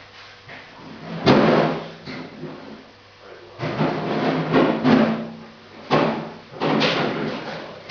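A series of sharp knocks and clatters, about six, irregularly spaced, each dying away over about half a second: objects being banged and handled.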